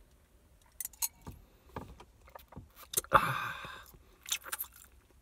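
A man sipping rum from a wine glass and tasting it: scattered small mouth clicks and lip smacks, a short breathy sound about three seconds in, then a few more smacks.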